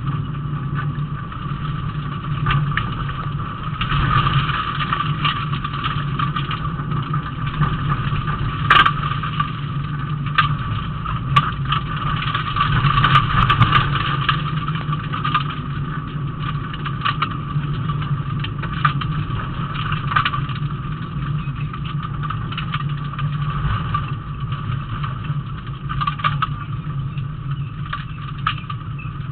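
Rally car's engine running at a fairly steady pitch, heard from inside the cabin, with scattered knocks and rattles from the car over the road. A sharp knock comes just under nine seconds in.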